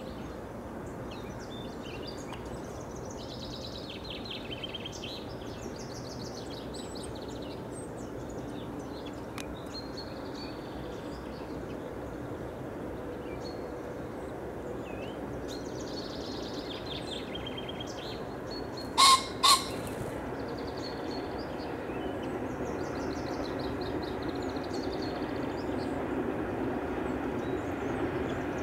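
A male common pheasant gives its loud two-note crow about two-thirds of the way through, over songbirds singing. A steady low rumble grows louder toward the end.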